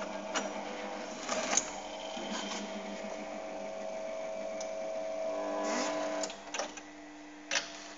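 Kingtech Robo Drill automatic paper drill running its drilling cycle: the motor hums steadily as the drill bores through a stack of booklets, with occasional mechanical clicks. The motor stops about six seconds in, followed by a few clicks.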